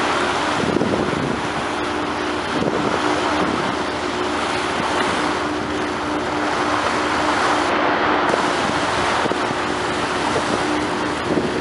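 Fishing vessel's engine running with a steady low hum, under a constant rush of wind on the microphone and sea water moving past the hull.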